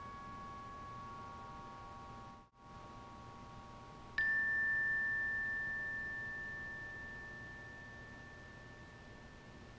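Glockenspiel: a chord of several ringing notes fades away, and the sound cuts out for a moment. About four seconds in, a single high note is struck and rings on, slowly fading.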